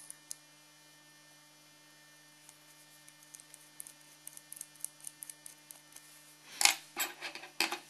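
Light clicks and taps of a small metal trigger assembly being handled in the fingers, coming quickly from a few seconds in, with two louder clicks near the end. A steady low electrical hum runs underneath.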